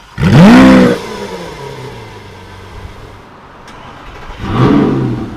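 A supercar engine fires up about a quarter-second in with a loud flare of revs that rises and falls back, then settles into a steady idle. About four and a half seconds in, the engine gives a second short rev blip.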